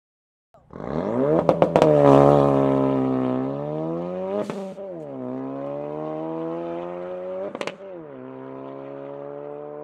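Ford Focus RS's turbocharged 2.3-litre four-cylinder accelerating hard away, its pitch rising through each gear and dropping sharply at two upshifts, with short sharp cracks early on and at each gear change. The sound fades as the car pulls away.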